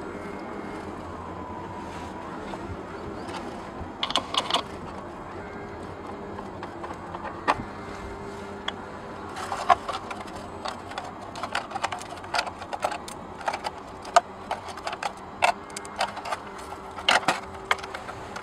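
EPP foam pieces of an RC plane's fuselage creaking and crackling as they are pressed and worked back together by hand, with irregular small clicks, sparse at first and frequent in the second half.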